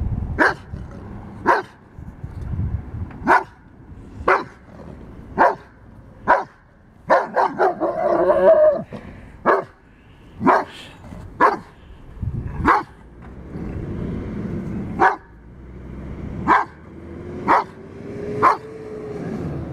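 Giant Schnauzer puppy barking at a life-size metal moose sculpture: single sharp barks, mostly about a second apart, with a quicker run of barks around seven to eight seconds in.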